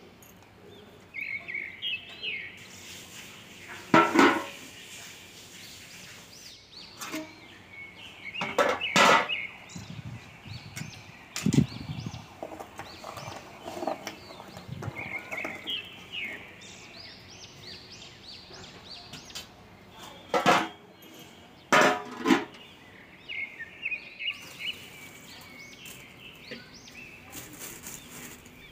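Birds chirping repeatedly in the background, with a few loud sharp knocks of a utensil against the aluminium pressure cooker pot as the biryani is stirred.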